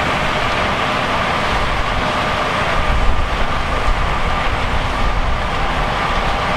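Large harvest machinery running steadily, a diesel drone with a constant high whine. A deep low rumble swells in the middle and eases off again.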